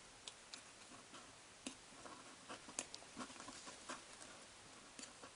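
Faint, irregular light clicks and taps of glitter glue and borax solution being stirred in a container.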